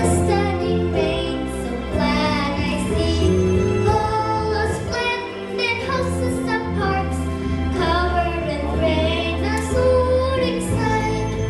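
A young child singing a melodic song over a musical backing track.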